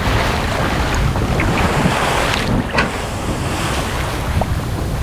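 Wind buffeting the microphone and water rushing along the hull of a racing sailboat under way, with a few short sharp knocks.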